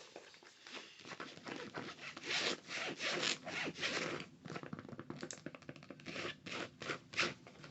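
Close-miked rubbing and scratching strokes on a small hand-held item, in an irregular run of quick strokes that grows busier about two seconds in.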